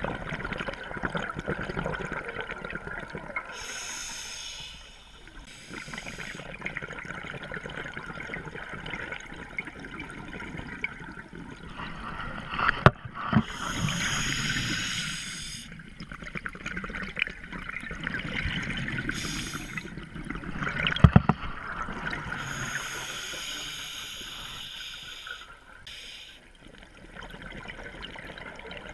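Scuba diver's breathing heard underwater: the regulator releases rushes of exhaled bubbles lasting a second to a few seconds each, several times, between quieter stretches. Two short sharp knocks come partway through.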